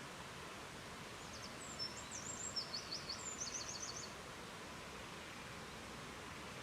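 Steady, even rush of river water, with a small songbird singing one short, high phrase of quick chirps and a rapid trill between about one and four seconds in.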